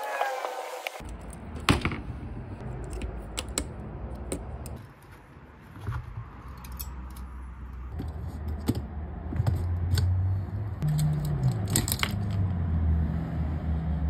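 Light metallic clicks and clinks of typewriter parts being handled and worked with pliers, scattered irregularly. Under them, in the second half, a low hum that shifts pitch in steps.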